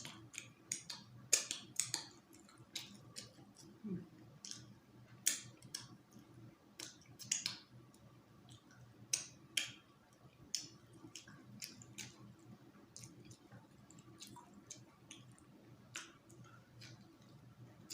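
Close-up eating sounds: irregular lip smacks and mouth clicks while chewing food, one or two a second.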